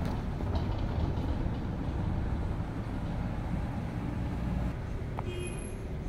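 Steady low rumble of motor traffic passing on the road, including a motorbike-drawn tuk-tuk, with a brief high-pitched tone near the end.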